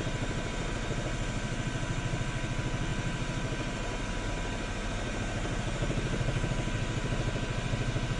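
News helicopter's rotor and turbine engine running: a steady drone with a fast, even beat and a faint high whine.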